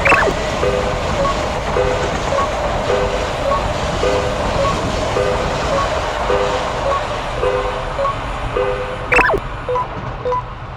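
Japanese railroad crossing bell ringing "kan-kan" in a steady repeating pattern over the rumble of a passing train. A short falling whistle-like sound comes at the start and again about nine seconds in. Near the end the train noise drops away and the bell rings on alone, faster and clearer.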